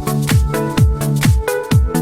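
Background electronic dance music: a four-on-the-floor kick drum about twice a second, with hi-hat clicks and a synth line.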